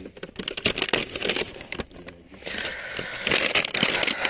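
Brown kraft paper bag crinkling and rustling as hands handle it and put something into it, in two bouts of crackling, the second longer and louder.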